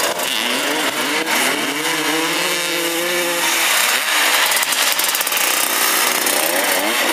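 Several motoball motorcycle engines revving together, their pitch rising and falling.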